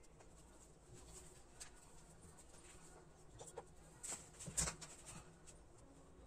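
Faint clicks and taps of small idols and pearl-bead strings being handled and set down on a cloth-covered shelf, with a couple of louder knocks about four and a half seconds in.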